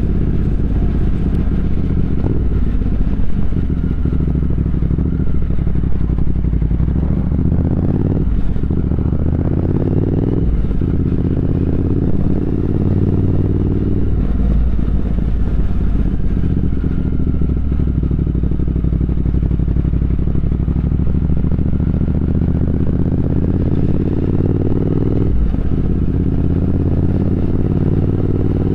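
Triumph Speed Twin 1200's parallel-twin engine pulling under way, its pitch rising steadily through each gear, with brief breaks for gear changes about eight, ten and a half, fourteen and twenty-five seconds in.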